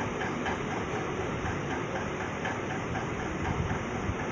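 Steady mechanical background noise with a faint, regular ticking, about three to four ticks a second.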